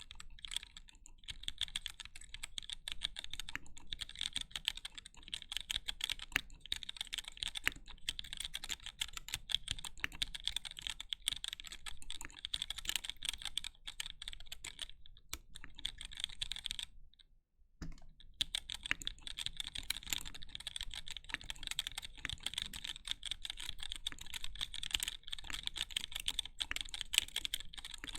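Mechanical keyboard being typed on fast: a continuous run of rapid keystroke clicks, with a brief pause about seventeen seconds in before the typing picks up again.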